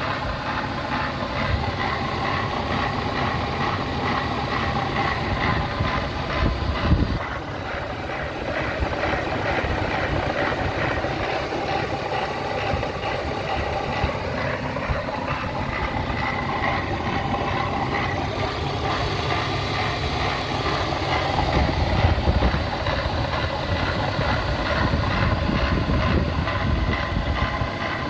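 BMW E36's M52B25 2.5-litre straight-six idling roughly, with a noise from the front of the engine that the owner suspects comes from the VANOS unit or the idle tensioner. There is one brief louder bump about seven seconds in.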